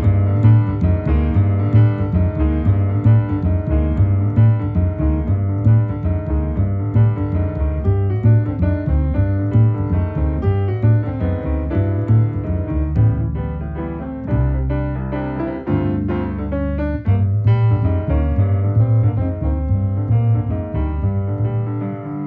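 Grand piano and double bass playing together: the bass plucks a steady pulse of low notes under the piano's chords and lines. About two-thirds of the way through, the bass holds a few longer low notes before the pulse returns.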